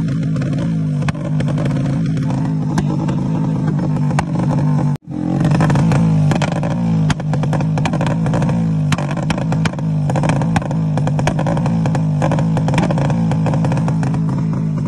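Honda Pridor motorcycle engine held at high revs against a homemade 'bee' rev limiter, its note bouncing as the limiter cuts in, with a rapid string of sharp pops and crackles from the exhaust as the flame kit fires. The sound cuts out for an instant about five seconds in.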